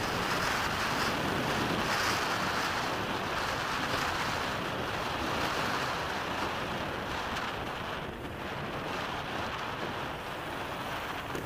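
Wind rushing over a helmet camera's microphone on a moving motorcycle, a steady roar that eases slightly about eight seconds in.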